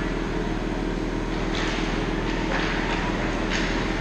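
Indoor ice rink ambience: a steady low mechanical hum, with three short scraping hisses of skate blades on the ice in the second half.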